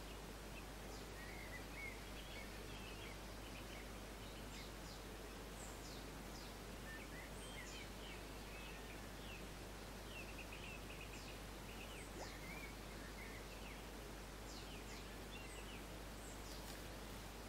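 Small birds chirping and calling, many short high chirps and quick downward whistles, over a faint steady outdoor background hiss.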